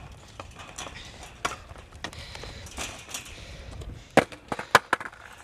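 Sharp knocks and clicks from a skater shifting on top of a chain-link fence, with the board and the fence knocking together, over a low wind rumble. There are scattered clicks, then a quick run of about five loud knocks about four seconds in.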